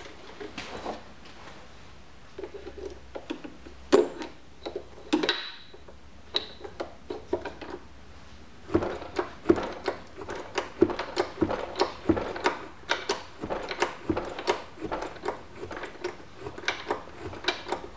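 Small hydraulic bottle jack being pumped by its handle to lift a drill-press head, a sharp clack at each stroke about one and a half times a second from about nine seconds in. Before that come a few scattered metal knocks and a brief metallic ring.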